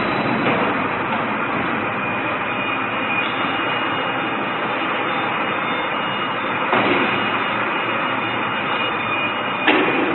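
Steady machinery noise with a faint high tone running through it, and two small knocks, about seven and ten seconds in.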